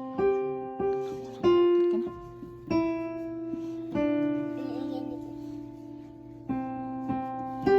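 Piano being played slowly, with single notes and chords struck about once a second and left to ring, forming a simple melody.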